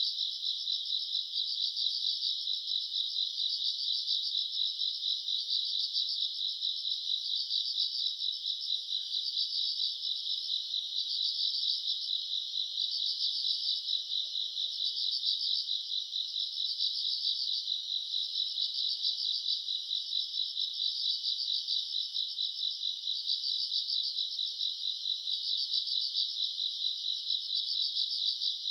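Chorus of night-singing crickets and other grassland insects trilling continuously in a rapid, even pulse, high-pitched and steady.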